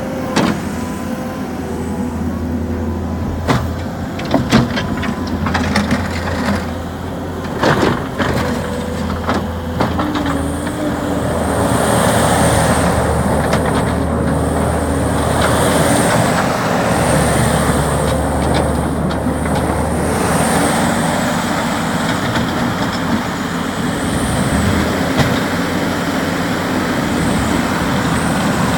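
New Holland skid steer's diesel engine running steadily, with several sharp knocks in the first ten seconds and louder running from about ten seconds in.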